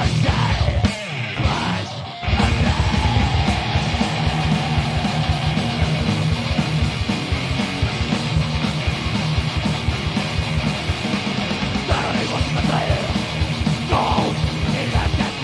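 Rock band playing live on electric guitar, bass and drums. A few stop-start hits come at the beginning, then the full band plays continuously over a fast drum beat. Shouted vocals come in near the end.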